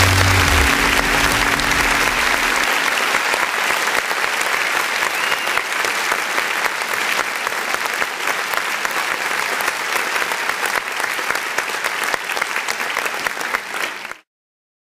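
Crowd applauding, a dense steady clapping, while the last notes of a music track die away in the first two or three seconds. The applause cuts off suddenly about fourteen seconds in.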